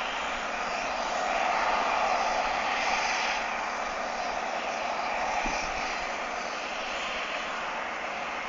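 Harvest machinery running steadily at work, a continuous mechanical drone that swells slightly a second or two in.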